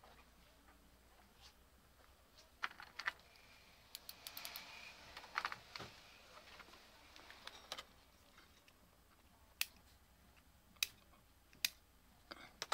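Small plastic electronic parts clicking and rattling as they are handled in plastic storage bins: scattered sharp clicks, with a busier clatter about four to six seconds in.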